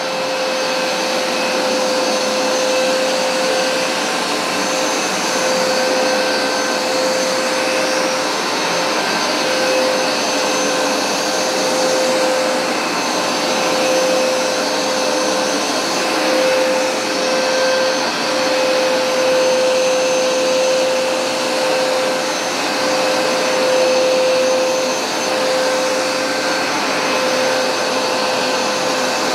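Hoover SmartWash Pet automatic carpet cleaner running, its suction motor giving a loud, steady whine with one strong held pitch, the level wavering slightly.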